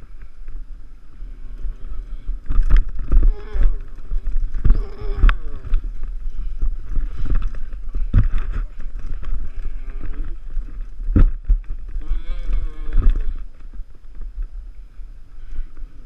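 Low rumble of wind and road bumps on a bicycle-mounted action camera's microphone as the bike rolls over pavement and grass, with a few sharp knocks. A voice calls out several times over it.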